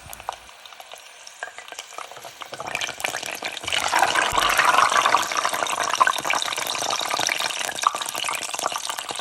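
Food frying in hot cooking oil: a light crackle that swells into loud, steady sizzling with dense popping about three seconds in.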